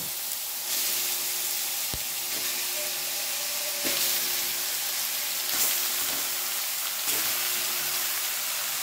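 Chopped onions sizzling in hot oil in an aluminium pot, the sizzle swelling several times as raw pork pieces are dropped in by hand to sauté.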